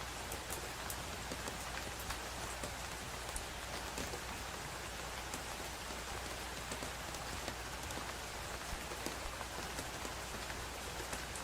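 Steady rain falling, an even hiss with many individual drops ticking throughout.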